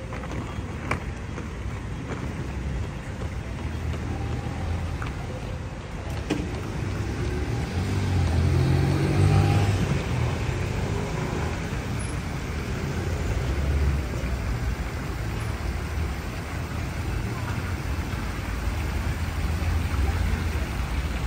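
City street traffic as a steady low rumble, with one vehicle passing louder about eight to ten seconds in, its engine pitch rising.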